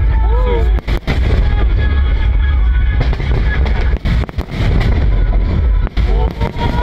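Aerial fireworks bursting in quick succession: a continuous heavy booming rumble with crackle, broken by several brief dropouts in level.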